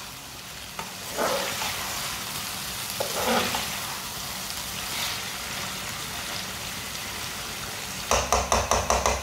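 Tinda in masala sizzling in an aluminium karahi over high heat, with a metal spoon scraping through it a few times. Near the end comes a quick, even run of about eight sharp knocks, louder than the frying.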